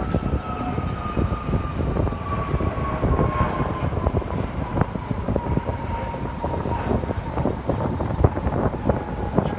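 Large jet aircraft passing, its engine whine falling slowly and steadily in pitch as it goes by, under heavy wind buffeting on the microphone.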